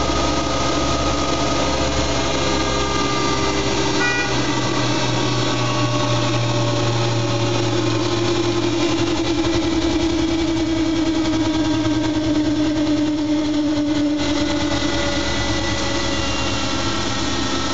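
Siemens iQ front-loading washing machine running, its motor and drum giving a steady hum with whining tones that slowly rise and fall in pitch as the drum speed changes.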